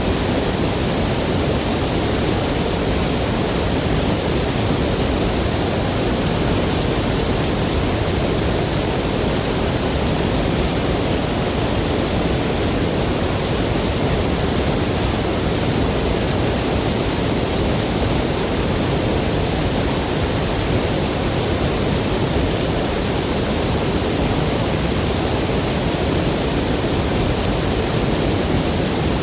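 Waterfall and river water rushing, a loud, steady, unbroken roar of falling and flowing water.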